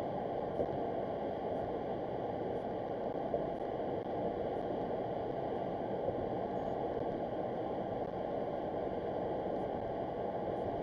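Steady road noise inside a car cruising at highway speed: tyres rolling on the bridge roadway with engine and wind noise, heard from inside the cabin.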